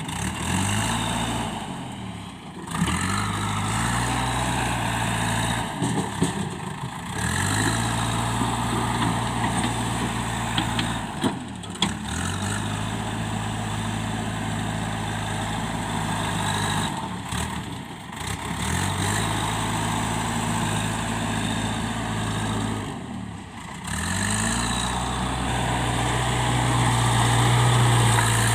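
Diesel engine of a JCB 3DX backhoe loader running under varying load, its note sagging and climbing again every five or six seconds. There are short breaks in between, and it is loudest near the end.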